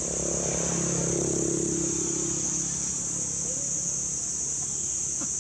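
Steady high-pitched insect chorus, with a motor vehicle engine running past in the first half and fading out about halfway through.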